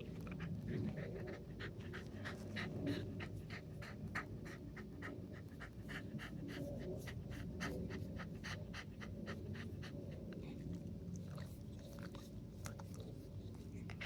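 Corgi panting rapidly and steadily, about three breaths a second, the anxious panting of a dog frightened by noise outside. A low steady rumble lies underneath.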